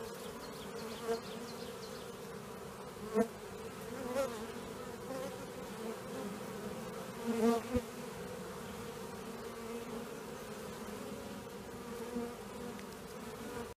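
Honeybees of a freshly captured swarm buzzing steadily around the entrance of a swarm box, swelling briefly a few times, around three and seven seconds in.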